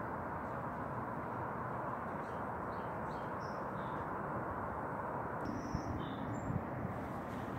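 A small bird calling in a handful of short, high chirps, scattered through the middle of the clip, over a steady distant rumble.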